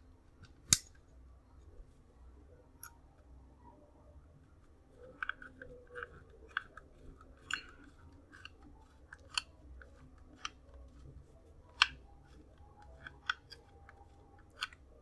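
Faint, scattered clicks and small scraping as a Raspberry Pi 5 board and its case are handled and fitted together by hand, with a sharper click right at the start and another about three-quarters through.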